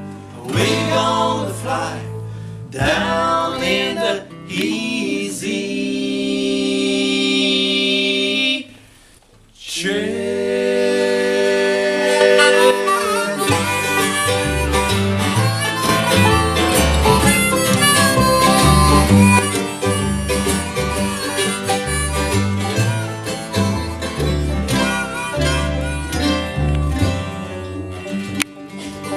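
Bluegrass band playing an instrumental passage: held chords at first, a brief drop-out about nine seconds in, then a fuller, busier section with a low bass line underneath.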